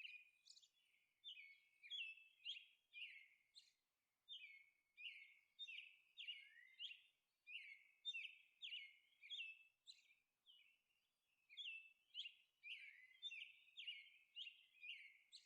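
Faint bird chirping: short, high chirps that fall in pitch, repeating about twice a second, with a brief pause about two-thirds of the way through.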